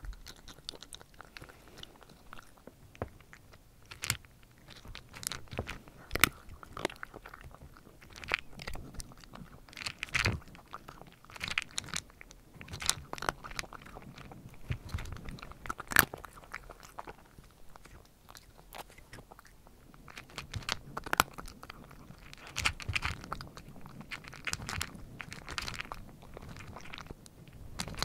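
A cat crunching and chewing dry kibble, close-miked: irregular sharp crunches that come in spells with short pauses between.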